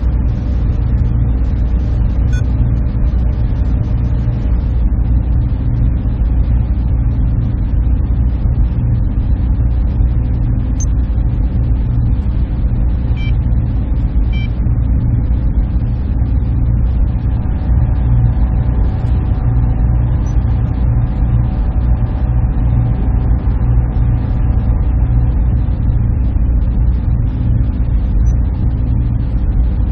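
Server room ambience: a steady, loud low drone of server cooling fans and air handling, with a few faint steady tones above it.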